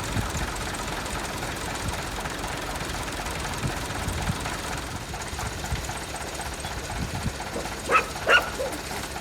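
Massey Ferguson 135 tractor engine running steadily. A dog barks twice near the end.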